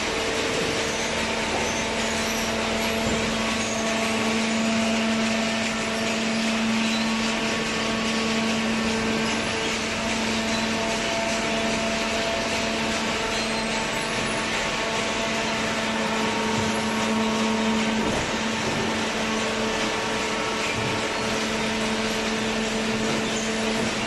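Hydraulic waste paper baler running: a steady low motor and pump hum over constant machine noise, without let-up.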